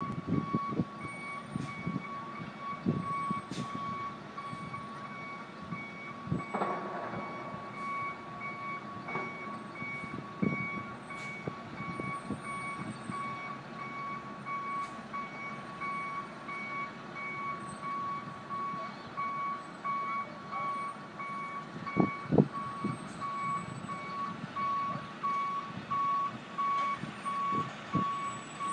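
A truck's reversing alarm beeping steadily, one tone repeated evenly over and over. Scattered knocks and clanks sound under it, the loudest pair about three-quarters of the way through.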